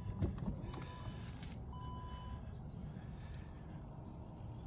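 Steady low rumble, with a faint click near the start and a short electronic beep about two seconds in.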